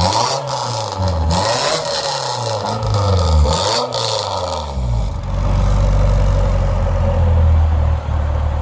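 Nissan Silvia S15's SR20 four-cylinder engine blipped through its newly fitted exhaust in several quick revs, then settling to a steady idle about five seconds in. It is far too loud.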